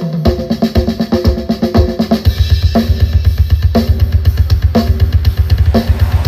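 Drum-heavy music played loud through an 18-inch subwoofer cabinet, the low end dominated by the bass drum, with snare and cymbals above; from about two seconds in, the kick drum goes into a fast, steady run of beats.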